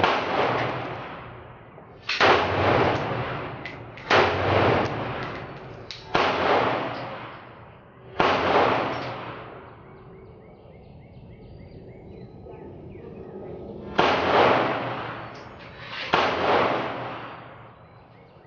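Rifle shots from a short-barrelled AR-15 being sighted in: four shots about two seconds apart, a pause of several seconds, then two more. Each crack rings on and dies away over a second or two.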